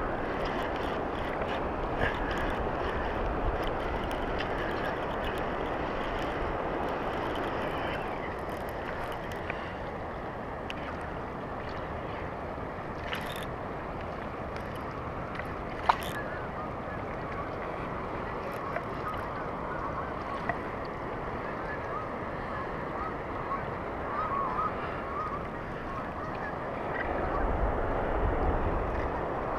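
Steady wind and choppy water noise, with one sharp click about halfway through. Near the end a flock of geese is honking overhead.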